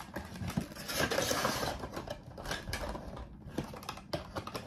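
Cardboard Funko Pop boxes and their plastic packaging being handled on a table: rustling and scraping with many small taps and clicks. It is loudest about a second in.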